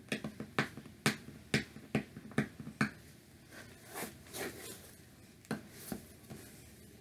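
A small product box and its packaging being handled and pried open: a quick run of sharp clicks and crackles for about three seconds, then softer rustling, then two more clicks near the end.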